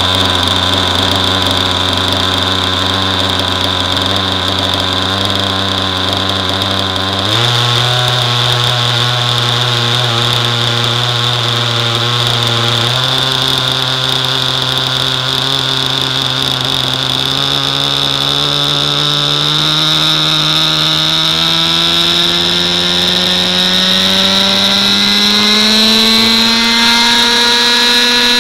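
A Thunder Tiger Raptor 50 Titan RC helicopter's nitro glow engine and rotor heard close up from the airframe. It runs steadily at low speed, steps up in pitch twice, then rises smoothly as the rotor spools up for lift-off, with a steady high whine on top.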